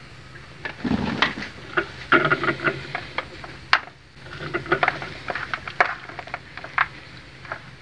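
Raw chicken pieces being turned and rubbed by hand in an aluminium pan, making wet squelches and irregular small clicks and taps. There is a dull knock about a second in.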